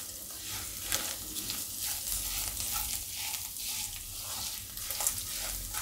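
Spices, chillies, curry leaves and coriander sizzling in hot oil in a nonstick wok, stirred with a silicone spatula that scrapes across the pan in uneven strokes. This is a tadka roasting on low heat to drive the moisture out of the chillies and coriander.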